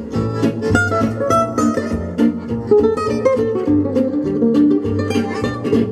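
Music played through a loudspeaker driven by a single-ended Eimac 250TH transmitting-tube amplifier: quick plucked notes over a steady bass line.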